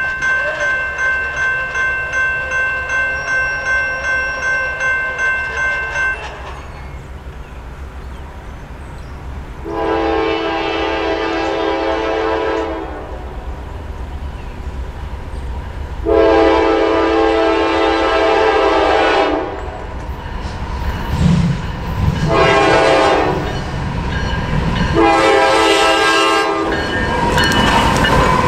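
Railroad crossing bell ringing about twice a second, stopping about six seconds in. Then the air horn of a Norfolk Southern GE Dash 9-44CW locomotive sounds the grade-crossing signal of two long blasts, a short and a long, each chord louder as the train nears. Near the end the locomotives reach the crossing with engine and wheel noise.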